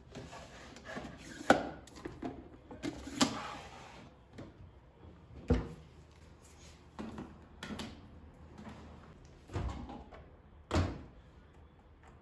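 Objects being handled: a series of sharp knocks and clatters, about five louder hits with softer rustling between them.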